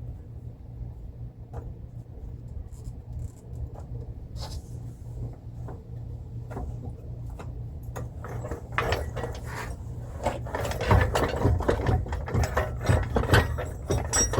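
Metal clicks, knocks and rattling as the front differential is worked and pried loose from its mounts, sparse at first and growing denser and louder about eight seconds in.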